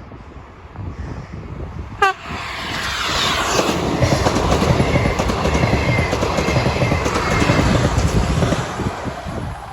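An ES1P electric multiple unit passing at speed. About two seconds in there is a short, sharp pitched sound, then the rush of the train and its wheels on the rails builds. A whine falls in pitch as the train goes by, and the noise eases near the end.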